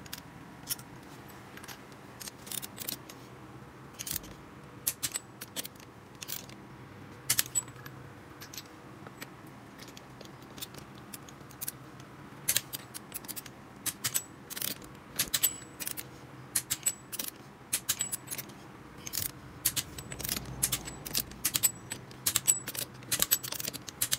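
Hand ratchet wrench clicking in quick runs of sharp metallic clicks as it is swung back and forth tightening a nut. The clicking grows busier in the second half.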